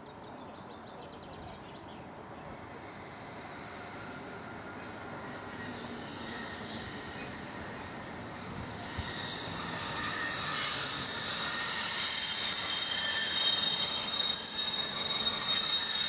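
Class 60 diesel locomotive 60063 running light engine and approaching, getting steadily louder throughout. High-pitched whistling tones come in about five seconds in and build to the end.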